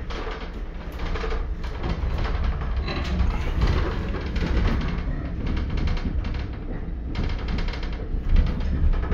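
Heritage railway passenger coach under way, heard from inside the guard's compartment: a steady low rumble of the wheels on the track with constant rattling and creaking from the coach body and fittings.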